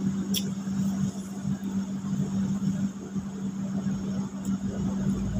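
Steady low machine hum at one pitch, with a sharp click of a spoon against a bowl about a third of a second in and a few fainter clicks later.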